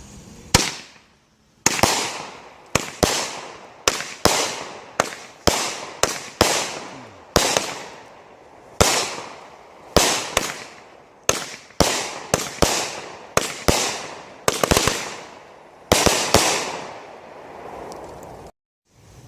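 Consumer fireworks going off in a fast, uneven string of about two dozen sharp bangs, each trailing away in a fading hiss over a second or so. The sound cuts off abruptly near the end.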